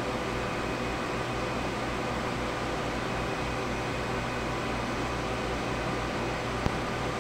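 HP ProLiant ML350 G5 server running, a steady whir of cooling fans with a low hum. A single sharp click comes near the end.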